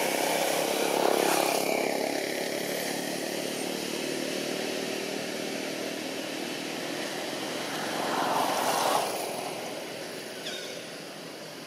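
Motor vehicle engines passing by: a steady drone that swells about a second in, falls in pitch as it goes by, and swells again later before fading.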